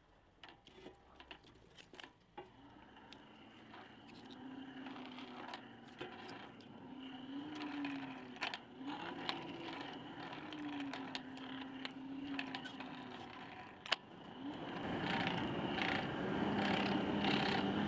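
A few light knocks of split wood being stacked, then a hand-cranked forge blower whirring, its pitch rising and falling in waves with the cranking speed as it blows air into a wood fire. The whir grows louder and steadier near the end.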